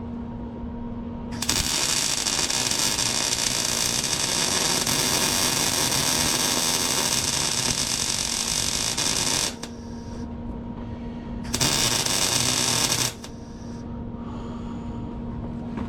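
MIG welder arc running a bead where a subframe connector meets the chassis frame rail: a steady crackling sizzle for about eight seconds starting just over a second in, then a second, shorter burst of about a second and a half near the end. A low steady hum is heard between the welds.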